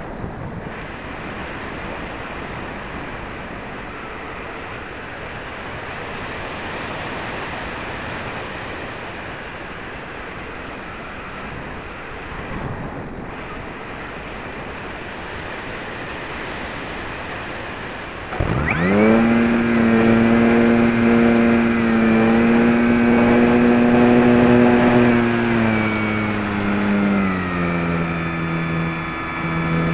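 Wind rushing over the microphone of an RC glider's wing-mounted keychain camera. About two-thirds of the way through, the HobbyKing Walrus glider's electric motor and propeller spin up suddenly to a loud, steady whine, then step down in pitch near the end as the throttle is eased back.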